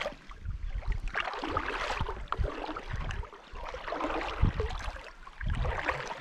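Shallow lake water sloshing and lapping right against the microphone, in uneven surges with low thuds.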